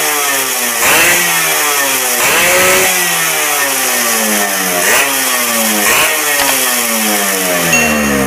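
Two-stroke single-cylinder motorcycle engine running and being blipped on the throttle: the revs jump up sharply about four times, each time falling away again.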